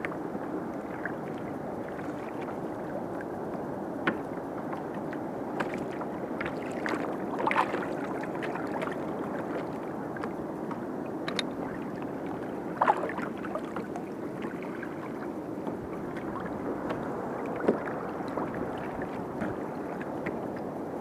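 Small waves lapping against a kayak's hull, a steady wash of water, with a few short sharp slaps scattered through.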